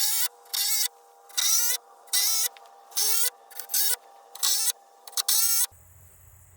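A power tool running in about ten short, loud bursts, its pitch wavering within each one, over a steady hum. It cuts off abruptly near the end.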